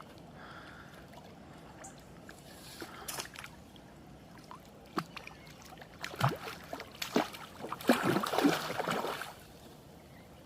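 Hooked carp splashing and thrashing at the water's surface while being played on the line: a few sharp splashes, then a burst of heavier splashing for about three seconds near the end.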